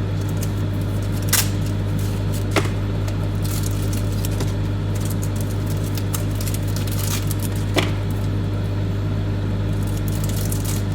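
Microwave oven running with a steady low hum while heating chocolate, with three sharp clicks or crinkles and a few fainter ticks over it.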